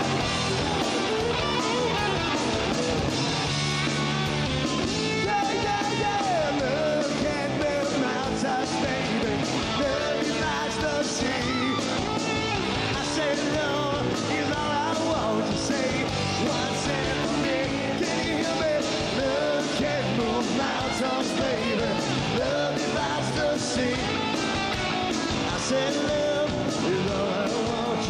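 Live rock band playing: electric guitar and drums with a singer.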